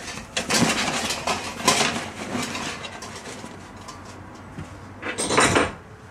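Rustling and knocking as a padded grill carry bag with metal grates inside is handled, dense for the first two seconds or so, then a short burst of noise a little after five seconds.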